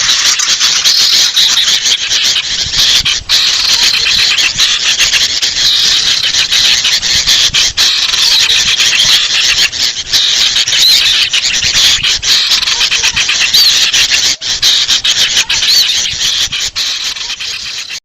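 A bird-lure recording of agitated, noisy calls from sooty-headed bulbuls (kutilang) mixed with sirtu calls. It is a dense, unbroken stream of shrill, scolding chirps and squeaks, easing slightly near the end.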